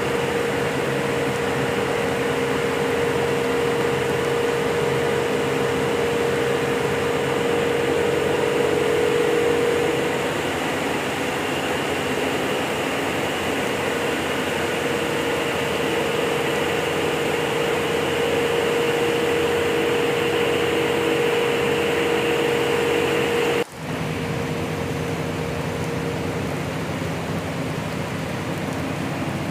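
Steady machinery hum, a hiss with a steady mid-pitched tone running through it. It drops out for an instant a little over 23 seconds in, then carries on slightly quieter.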